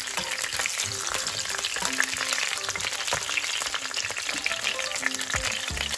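Lemongrass, salam leaves, lime leaves and galangal frying in hot oil in a pan: a steady sizzle full of fine crackles.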